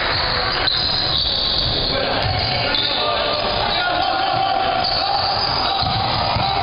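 Basketball game noise in a gym: a basketball bouncing on the court amid a steady din of voices.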